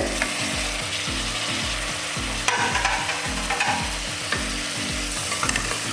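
Onions, ginger, garlic, green chillies and freshly added tomatoes sizzling in coconut oil in a pressure cooker, with a spoon stirring and scraping the pan every so often.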